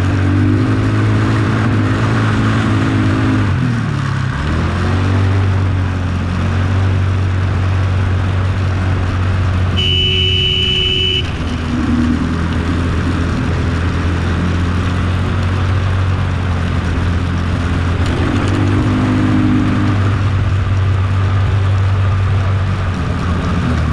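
ATV engine running under way, its pitch rising and falling with the throttle, over a steady hiss of wind and terrain. About ten seconds in, a steady high beep sounds for just over a second.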